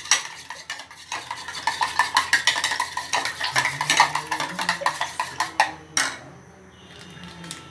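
Metal spoon clinking rapidly against a ceramic bowl while beating eggs. The stirring ends with a louder knock about six seconds in.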